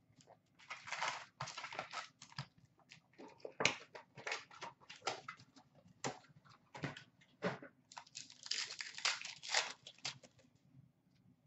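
A cardboard trading-card box being opened and its card packs handled and torn open: irregular crinkling and rustling of pack wrappers with sharp clicks. The rustling is thickest near the end as a pack is torn.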